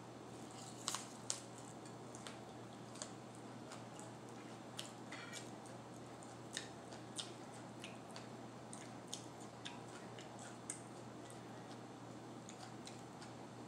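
Close-up chewing of a raw mini sweet pepper stuffed with cream cheese and everything bagel seasoning: two sharp crunches about a second in, then scattered lighter crunches and clicks.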